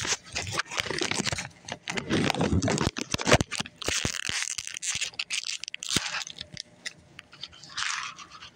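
Close handling noise: crinkling, rustling and scraping right by the microphone, broken by a few sharp clicks about three seconds in and again about six seconds in.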